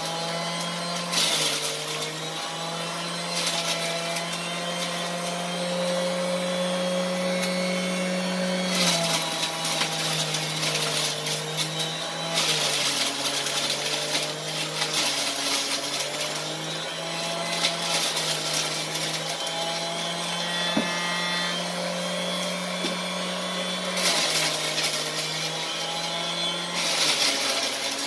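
Electric centrifugal juicer running as grapes are pushed into its feed chute and shredded. The motor's pitch steps down and back up several times as it is loaded, with several bursts of harsher grinding.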